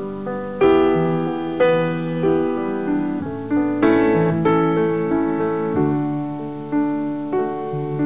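Slow solo piano music: notes and chords struck about once a second and left to ring and fade.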